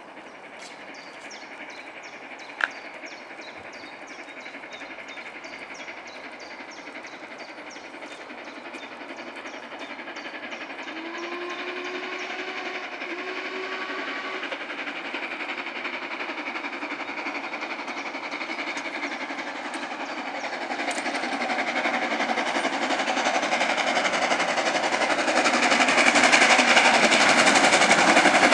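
Four-cylinder LMS Princess Royal Pacific steam locomotive 6201 Princess Elizabeth approaching under steam, growing steadily louder as it comes out of a tunnel. It gives two short blasts on its deep whistle about halfway through. A single sharp click sounds a couple of seconds in.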